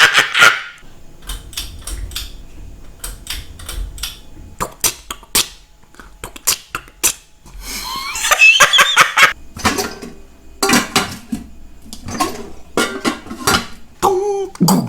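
A person making mouth sounds: a run of sharp clicks and smacks, a longer hissing, breathy burst about halfway through, and a short voiced sound near the end.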